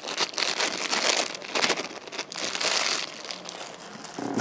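Irregular crinkling and rustling as fingers sprinkle diced raw onion over a herring fillet on a plate, in uneven bursts.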